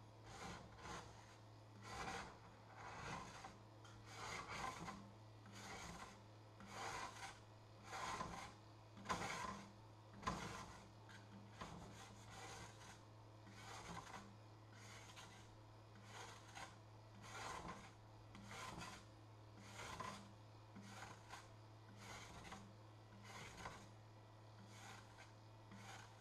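Hand rubbing or wiping across a 3D printer's print bed sheet in repeated back-and-forth strokes, about one a second, over a faint steady hum.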